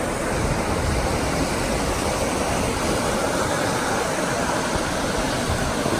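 Steady rush of whitewater rapids.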